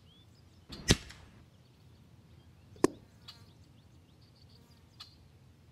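Two sharp cracks from an EDgun Leshiy air rifle firing a double tap. The first, about a second in, is the louder and trails off briefly; the second comes near three seconds. A couple of fainter clicks follow.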